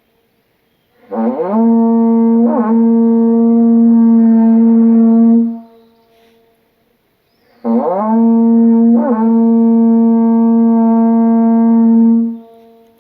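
Japanese horagai (conch-shell trumpet) blown twice. Each blast swoops up from a low start, flips briefly in pitch, then holds a long steady note for about three seconds before it stops.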